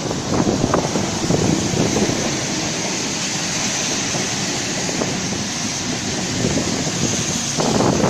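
Double-deck Sydney Trains electric train passing close by at low speed into the station: a steady rumble of wheels and traction motors, mixed with wind buffeting the microphone.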